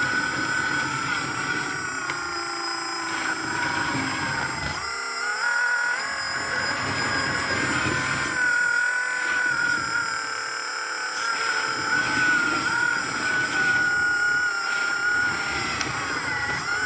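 Small DC electric motors of a 3D-printed RC hydraulic wheel loader whining as the model runs, the hydraulic pump and drive motors rising and falling in pitch as they load and unload.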